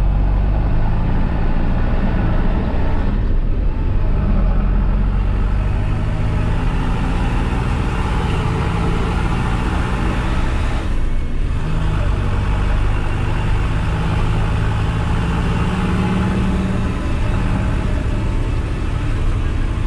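New Holland tractor diesel engine running steadily, its pitch shifting slightly a few times as engine speed changes.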